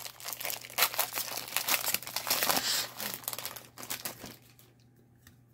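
Plastic trading-card pack wrapper crinkling as it is torn open, with dense crackling that stops about four seconds in.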